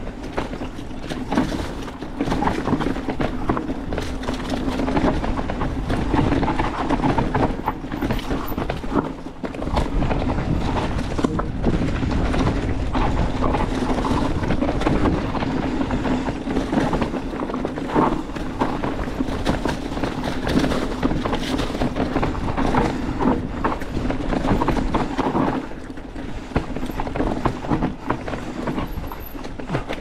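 Mountain bike riding fast down a dry, dusty dirt trail: tyres rolling over the ground and the bike rattling and clattering continuously over the bumps.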